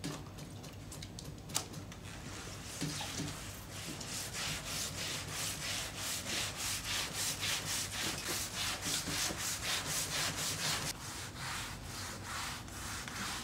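A doodlebug scrubbing pad on a pole scrubbed back and forth across the grain of a wet teak deck, a rhythmic rasping at about three strokes a second. A single sharp knock comes a little over a second in.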